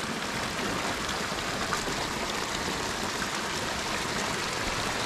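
Steady rush of a swollen, fast-flowing stream in monsoon floodwater.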